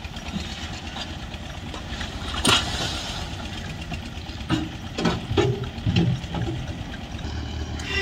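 An engine running steadily, with a sharp knock about two and a half seconds in and a few more knocks and clunks between about four and a half and six seconds.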